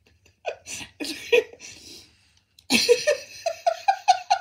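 Robot dog toys making electronic vocal sounds: a few short gliding chirps, then a quick run of short rising giggle-like notes in its second half.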